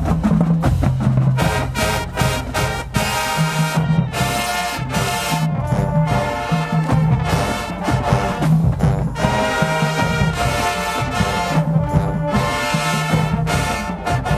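High school marching band playing loud brass chords in short held phrases over the drum line's steady beat.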